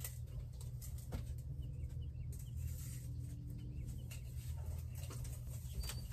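Faint steady low rumble with a few light clicks from a tape measure being pulled out and handled, and faint bird chirps in the background.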